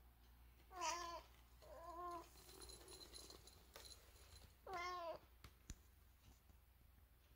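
A domestic black cat gives three short chirping calls, the chattering or 'cackling' a cat makes at something it is watching. The first two come close together about a second in, and the third comes about five seconds in.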